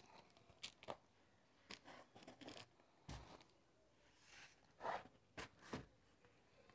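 Cardboard shipping box and its packing tape being handled and turned over: faint, scattered scrapes, taps and crinkles, the loudest a pair of rustling scrapes about five seconds in.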